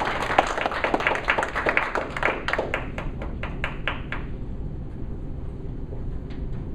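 A small group of people clapping for about four seconds, the claps thinning out and stopping; after that only a low steady room noise remains.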